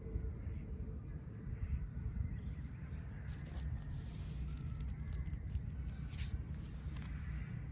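Tarot cards being handled and turned over one by one: a run of soft clicks and card sounds in the middle, over a steady low rumble.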